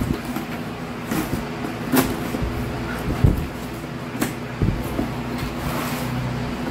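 Knife blade slitting the packing tape along the top of a cardboard shipping box: a string of short scrapes, clicks and knocks against the cardboard, about one a second. A steady low hum runs underneath.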